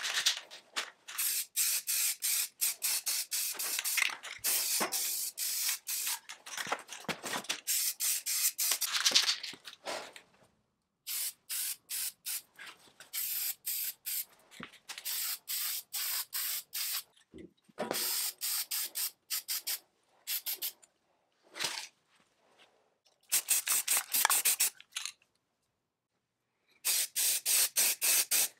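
Spray paint hissing out in many short bursts, a few a second, in runs broken by brief pauses, as chainsaw parts are given their coats of primer and paint.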